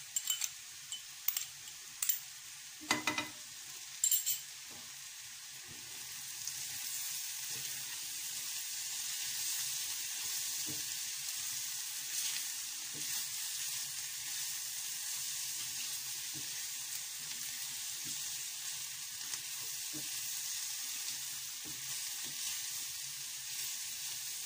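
Sliced mushrooms sizzling in butter in a frying pan while they are stirred with a silicone spatula. A few sharp clicks and one louder ringing knock come in the first few seconds, and the sizzle gets louder from about six seconds in.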